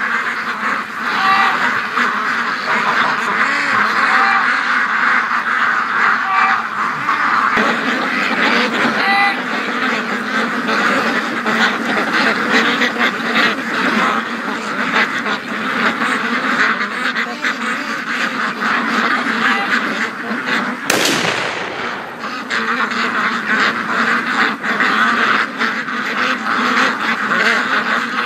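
A large flock of domestic ducks, Pekins among them, quacking continuously. One sharp crack about three-quarters of the way through is a single distant gunshot fired toward the swamp to scare off any predator lurking there.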